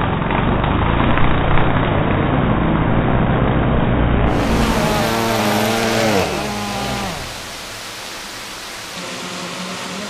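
DJI Phantom 3 Professional quadcopter's motors and propellers whirring close by, a dense buzz. Between about five and seven seconds in, the pitch sweeps down and the sound falls to a quieter, steady hum.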